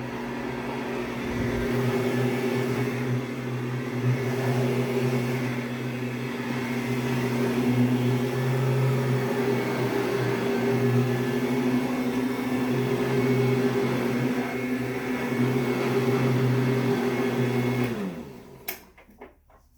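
Upright vacuum cleaner running on carpet with a steady motor hum. It is switched off near the end, and the motor winds down with a falling pitch.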